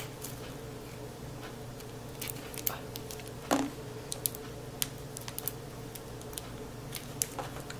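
Scattered small clicks and crinkles of hands working at a cellophane-wrapped playing card deck to get it open, with one slightly bigger rustle about three and a half seconds in. A steady low hum runs underneath.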